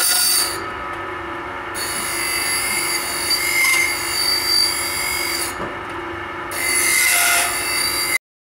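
Saw blade grinding machine's wheel grinding the teeth of a circular saw blade: a harsh, high scraping grind over the motor's steady hum. The grinding breaks off twice for about a second, and everything cuts off suddenly near the end.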